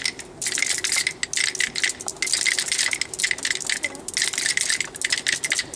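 Many pairs of wooden rhythm sticks clacked together by a group of children, a dense, uneven clatter of sharp clicks with a few brief lulls.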